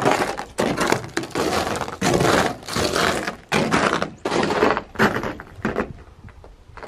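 Footsteps crunching through snow on a wooden deck, about two steps a second, slowing and stopping near the end.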